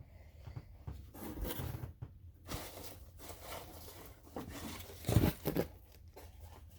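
Packaging being handled and unwrapped: uneven rustling and crinkling, with a louder bump about five seconds in.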